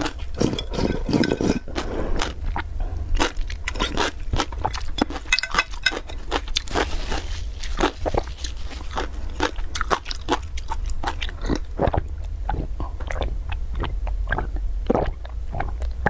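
A person eating close to the microphone: crunching and chewing, with many sharp mouth clicks. It opens with a couple of seconds of gulping broth from a tilted bowl.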